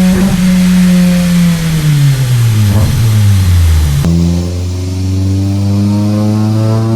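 Mitsubishi 4G93 MIVEC four-cylinder engine, through a custom exhaust, run hard on a chassis dyno. It holds high revs, then the revs fall away as the pull ends, with a couple of short pops. Partway through, a new pull begins with the revs climbing slowly under load.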